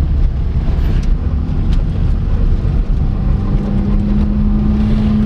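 Ford Fiesta Mk1 driving on a gravel road, heard from inside the cabin: a dense engine and tyre rumble, with a steady engine note that grows stronger about halfway through and a few sharp ticks.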